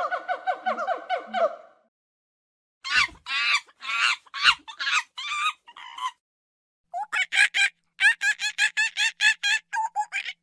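Monkey chattering and screeching in quick series of short, high, pitched calls: three bouts with silent gaps of about a second between them, the last a fast run of about four calls a second.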